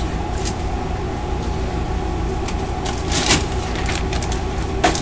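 Steady low hum, with a few short rustles and a louder crinkle of a plastic bag about three seconds in as a bag of almonds is picked up.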